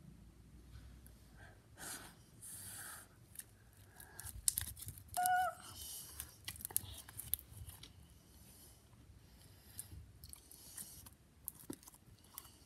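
Sticky slime being stretched and pulled apart by hand, giving faint crackles, small pops and clicks. A brief squeak about five seconds in.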